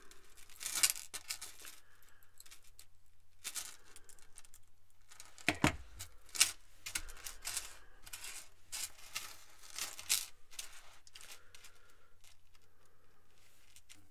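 Small blackened stainless steel chainmail rings clinking and jangling against one another as the chainmail is handled, a run of irregular sharp metallic clicks with a few louder clinks around the middle.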